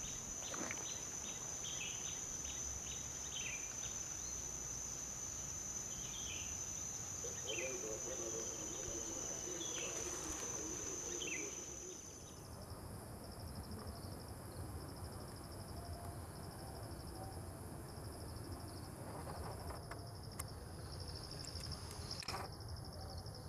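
Tropical forest insects: a steady high insect drone with short falling chirps over it. About halfway through, the drone gives way to a fast, pulsing, cricket-like trill.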